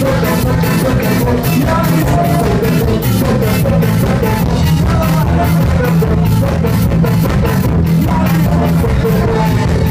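A live brass-and-rock band playing loud, upbeat ska: saxophones and a tuba over drum kit and guitar, with a singer at the microphone and a steady drum beat.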